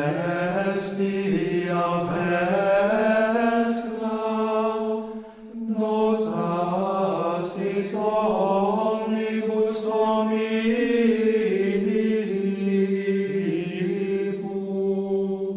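Gregorian chant sung unaccompanied by a small group of men's voices, Trappist monks, on one slow, sustained melodic line, with a brief break for breath about five and a half seconds in.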